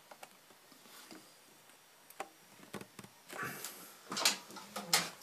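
Scattered light clicks and knocks of objects being handled, with a few sharper, louder ones near the end.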